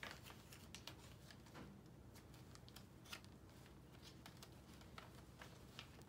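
Faint, scattered rustles and soft clicks of paper pages being turned and handled in a handmade junk journal.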